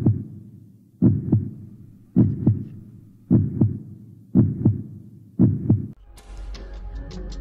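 Heartbeat sound effect: deep paired lub-dub thumps, about one beat a second, building suspense. About six seconds in the beats stop and a low steady rumble with faint music comes in.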